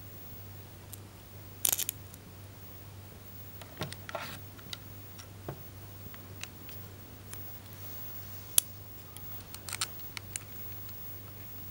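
Scattered clicks, taps and short rattles of small parts being handled as a cut-off disc and mandrel are fitted to a Dremel Stylus cordless rotary tool, which is not running. One sharp click a little past halfway, over a low steady hum.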